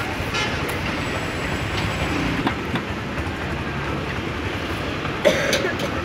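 Steady rumbling background noise of a busy street-food market, with a short, sharp louder sound about five seconds in.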